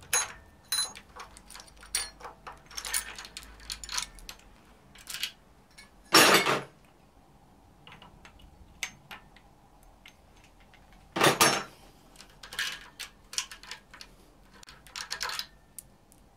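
Steel timing chain and camshaft sprockets of a BMW inline-six being handled by hand, clinking and jangling metal on metal in short irregular clinks, with two louder rattles of the chain about six and eleven seconds in.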